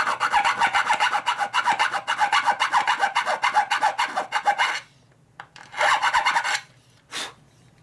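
Hand file rasping in quick, even back-and-forth strokes, enlarging a bolt hole into a slot so the bolt no longer binds. A long run of strokes stops about five seconds in, a short second run follows a second later, and a single brief click comes near the end.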